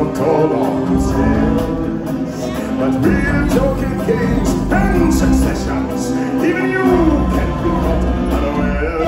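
Loud stage-show music with singing over a heavy beat, played through a theatre's sound system.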